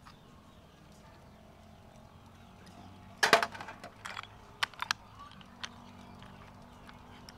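Snail shells clacking against one another and the metal colander as they are handled, with a loud burst of clacks about three seconds in, then a few sharper single clicks.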